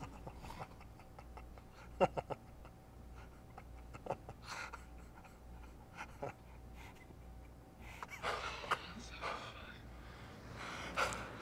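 A man breathing heavily and gasping, with a few sharp clicks or knocks, the loudest about two seconds in, and stronger breathy gasps near the end.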